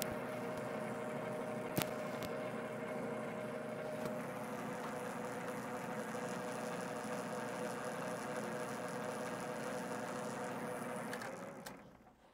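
Small metal lathe running steadily under power with a motor whine and gear hum while threading an acrylic pen body, with a sharp click about two seconds in. The lathe is switched off and quickly runs down near the end.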